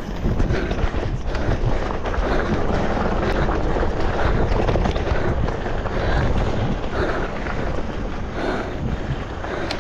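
Wind rushing over the microphone and the rolling, rattling noise of an electric mountain bike riding down a dirt trail, with a sharp knock near the end.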